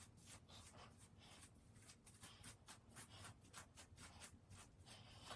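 Faint, quick scratching strokes of a brush or comb through hair, several a second, a little stronger after about two seconds.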